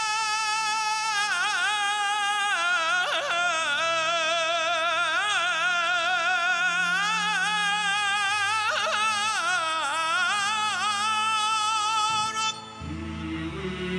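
A male solo voice sings an Egyptian religious supplication (ibtihal), holding a long melismatic 'Ya…' with heavy vibrato and winding ornaments. Near the end the solo breaks off and a lower chant of men's voices comes in.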